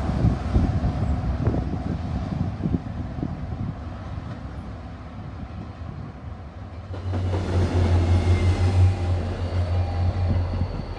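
Train on the tracks: a rumble with scattered knocks that eases off, then a deep steady drone that comes in about seven seconds in.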